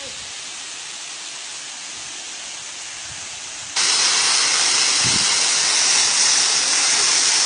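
Rushing water of a high waterfall, a steady hiss. About halfway through it abruptly becomes much louder and brighter.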